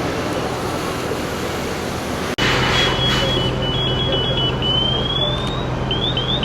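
Steady rushing noise, then after a sudden cut about two seconds in, a vehicle engine running steadily with high-pitched electronic beeps and several short rising chirps.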